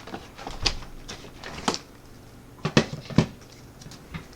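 Handling noises of small tools and lock parts: a few sharp, separate clicks and taps as things are picked up and set down, the loudest three close together in the second half.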